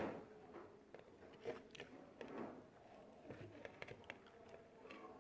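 A person eating: quiet chewing and mouth sounds with irregular soft clicks, over a faint steady hum.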